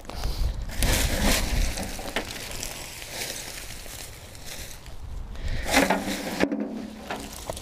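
Leafy green hedge clippings rustling and crackling as gloved hands shake and scatter them from a wheelbarrow onto a bonfire, with a low rumble in the first couple of seconds.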